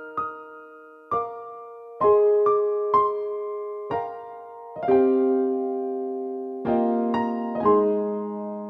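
Background music: a piano playing slow single notes and chords, each note fading after it is struck, with one longer held chord near the middle.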